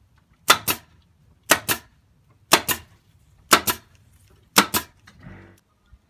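Pneumatic staple gun firing five times, about one shot a second. Each shot is a sharp double snap as it drives stainless steel staples through sound-absorber lining into a wooden fence.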